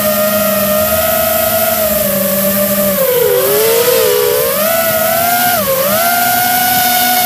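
Steady whine of a radio-controlled model aircraft's motor and propeller, heard from the aircraft carrying the camera, with a lower hum underneath. The pitch wavers and drops twice as the throttle changes, once a few seconds in and again near the end.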